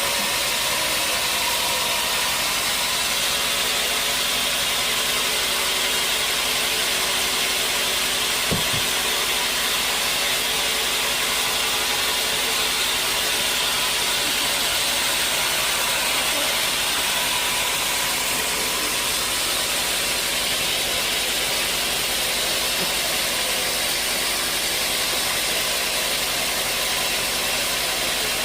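Sawmill saw running steadily through a large hard acacia log: a continuous hiss of cutting over a machine hum, with a single knock about eight seconds in.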